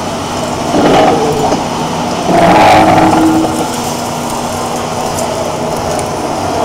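SKD-914 pipe cutoff and beveling machine running, its rotating ring carrying the tool posts around a large steel pipe as they cut. The noise is steady, louder briefly about a second in and again from about two to three and a half seconds in.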